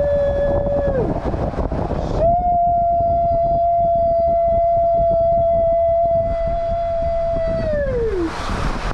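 Rider screaming on a tube water slide: a held scream that breaks off falling about a second in, then a second long steady scream of about five seconds that drops in pitch at the end. Rushing water noise runs beneath.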